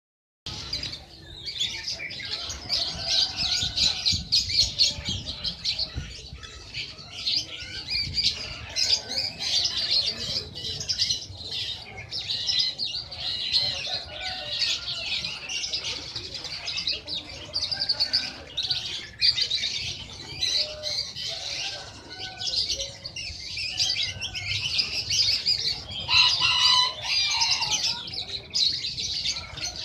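A sunbird sold in Indonesia as 'kolibri ninja' singing a long, continuous, rapid high-pitched twittering song, with a few lower notes mixed in and a louder stretch near the end.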